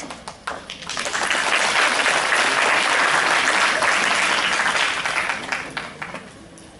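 Audience applauding: a few scattered claps, then full applause for about four seconds that thins out and dies away near the end.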